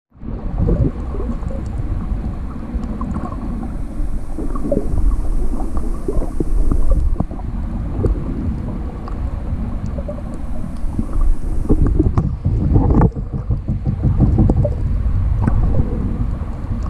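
Muffled underwater rumble and water sloshing picked up by an action camera in its waterproof housing, with scattered small clicks and crackles throughout.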